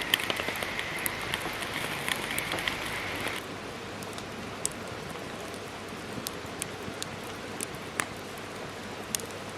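Wood fire in a small solo fire pit crackling, with sharp irregular pops over a steady hiss as yakitori skewers grill over it. The hiss drops abruptly a little over three seconds in.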